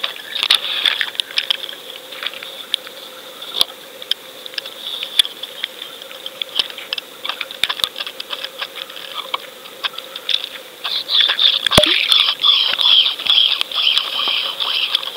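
Irregular crackling and clicking picked up by an underwater fishing camera as it sinks on the line. The crackle turns into a dense, continuous crackle from about eleven seconds in. One sharp knock stands out just before that.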